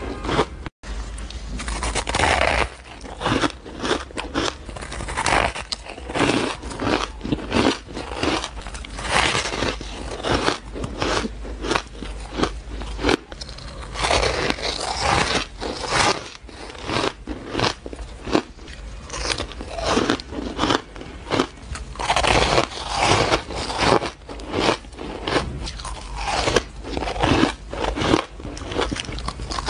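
Close, crisp crunching of fluffy frozen ice blocks being bitten and chewed into a clip-on lavalier microphone, several crunches a second. There is a brief dropout about a second in.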